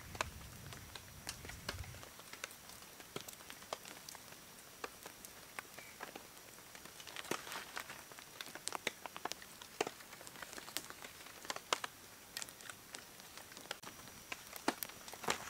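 Small campfire of dry split kindling catching and crackling, with scattered irregular sharp pops and snaps.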